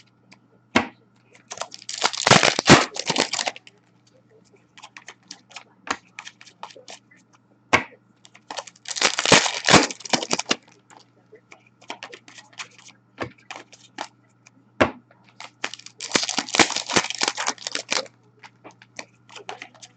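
Upper Deck Series 1 hockey card pack wrappers being torn open, three times, about seven seconds apart, each tear a crinkling rip lasting a couple of seconds. Light clicks and rustles of cards being handled come between.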